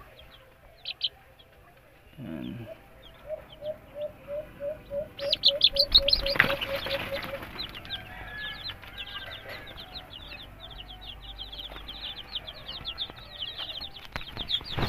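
Young chicks peeping: a dense chorus of short, high, falling cheeps that starts about five seconds in and keeps going. Before and under its start, a lower call repeats evenly, about four times a second, for a few seconds.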